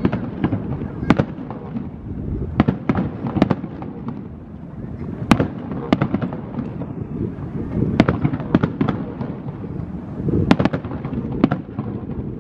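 Aerial fireworks display: a dozen or more sharp bangs from bursting shells at uneven intervals, several close together at times, over a constant low din.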